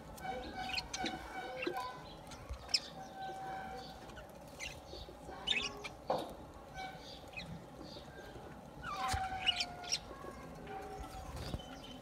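A flock of budgerigars chattering, with many short chirps and warbling calls overlapping.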